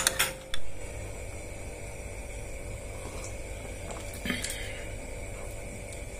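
A metal spoon clinks against a ceramic mug a couple of times at the very start. After that there is only a steady low hum, broken by one short sound about four seconds in.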